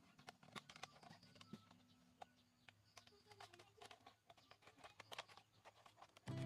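Near silence broken by a few faint, scattered clicks of scissors snipping into a clear plastic bottle.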